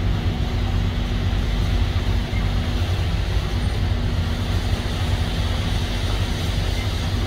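Heavy diesel engine running steadily at low revs, a deep even drone that holds one pitch throughout.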